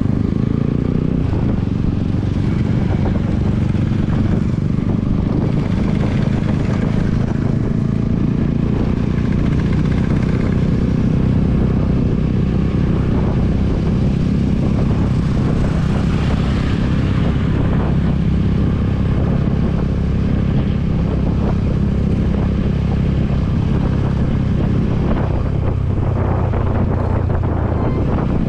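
TVS Apache RR310's single-cylinder engine running at a steady cruise while being ridden, its note easing slightly lower near the end.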